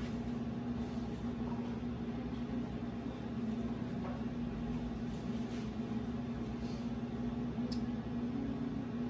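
Steady motor hum of a running kitchen appliance, one low tone held constant throughout, with a faint sharp click near the end.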